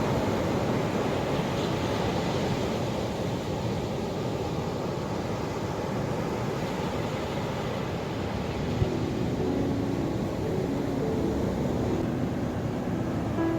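Ocean surf with a steady rush of breaking waves. Faint soft music notes come in over it during the last few seconds.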